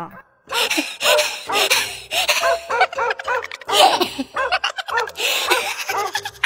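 Giggling laughter in quick short peals that rise and fall, starting about half a second in.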